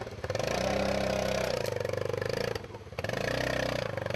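Kymco 4x4 side-by-side utility vehicle's engine working hard under load as it pushes through brush, held on the throttle in long pulls with a brief drop about two and a half seconds in.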